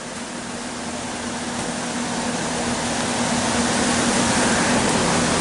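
Steady rushing noise with an even low hum underneath, growing gradually louder.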